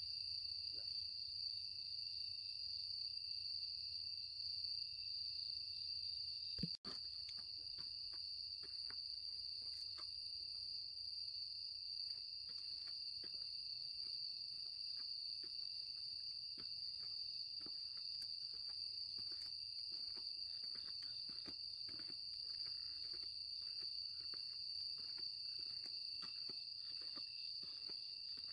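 Night chorus of grass insects, a continuous high-pitched trill that holds steady throughout, broken by a momentary dropout with a click about seven seconds in.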